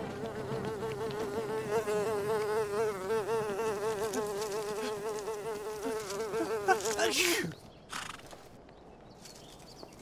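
Cartoon sound effect of a housefly buzzing with a wavering pitch. About seven seconds in there is a brief hiss, and the buzz then drops in pitch and stops.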